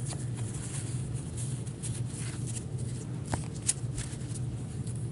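2016-17 O-Pee-Chee hockey trading cards being handled and shuffled through by gloved hands: faint, scattered card slides and light taps over a steady low hum.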